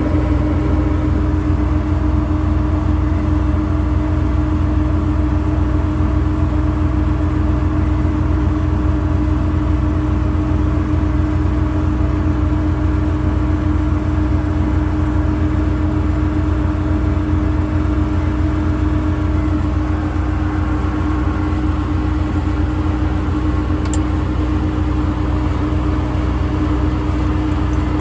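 Ford F550's 6.7 Power Stroke diesel engine running steadily, with a constant hum over the engine note.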